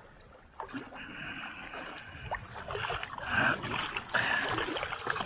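Small waves splashing and lapping against shoreline stones in uneven surges, with a few sharp clicks.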